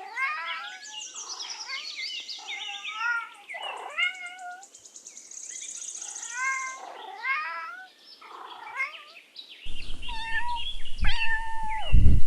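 Domestic cat meowing over and over, a long series of short calls that bend in pitch. About ten seconds in, a low rumble of background noise comes in under the meows.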